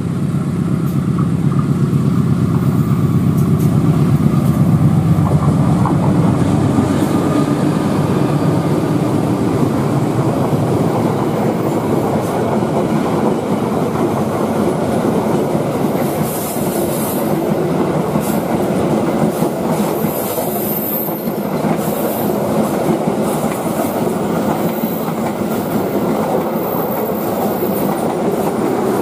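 A KAI diesel locomotive hauling a passenger train passes close by, its engine loud over the first several seconds. Then comes the steady rumble and clickety-clack of the coaches rolling past, with a thin high wheel squeal in the second half.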